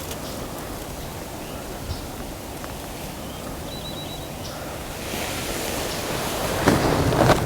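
Wind blowing over the microphone, building over the last couple of seconds into a strong gust. About midway a small bird gives four quick high chirps.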